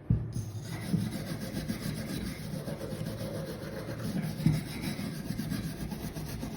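Small steel wire brush scrubbing rust off a steel hand tool wet with WD-40: continuous rough scratching strokes, uneven in strength, with a short knock at the start.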